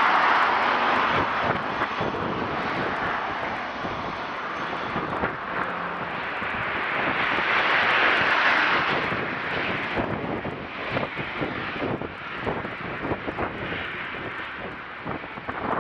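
Sorefame CP0600 diesel railcar running, a steady rushing engine and rolling noise that swells near the start and again about eight seconds in. From about ten seconds on, gusts of wind buffet the microphone.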